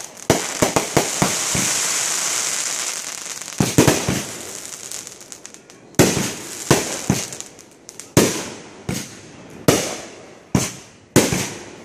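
Aerial fireworks bursting: a quick cluster of sharp bangs, then a stretch of high hissing crackle. From about halfway there is a steady run of bangs, a little under a second apart.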